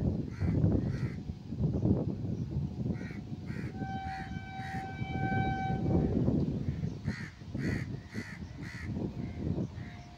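Crows cawing repeatedly, in short calls often in twos and threes. A distant train horn sounds a steady held note for about two seconds in the middle, over a continuous low rumble.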